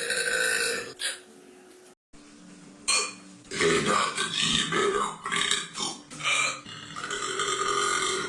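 A girl burping: one loud burp at the start, then after a short quiet stretch a run of long, loud burps one after another through the second half.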